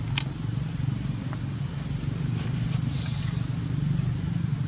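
A steady low motor hum, with a brief sharp click just after the start.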